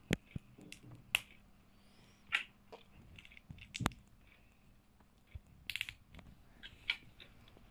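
Plastic LEGO pieces being handled and snapped together: irregular sharp clicks, with a brief rattle of pieces a little before the end.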